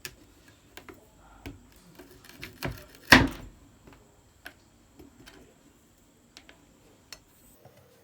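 A knife cutting a slab of setting peanut-and-sugar brittle on a wooden chopping board: scattered knocks and clicks, the loudest about three seconds in.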